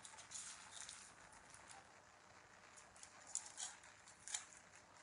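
Faint crackling and rustling of dry, papery red onion skin being peeled off by hand, in short crisp bursts with two sharper crackles in the second half.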